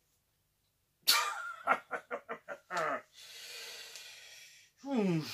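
A man's short laugh of quick rhythmic pulses about a second in, then a long, noisy breath out, ending in a low groan that falls in pitch.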